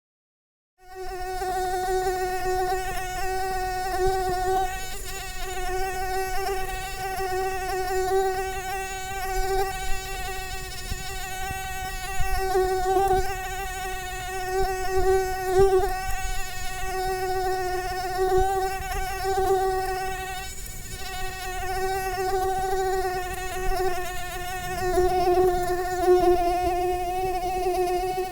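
Mosquito buzzing in flight: a steady whine that wavers slightly in pitch and loudness, starting about a second in.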